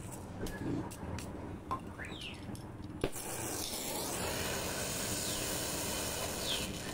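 Oxy-fuel welding torch lit with a sharp pop about three seconds in, then its flame hissing steadily. A few short bird chirps sound over it.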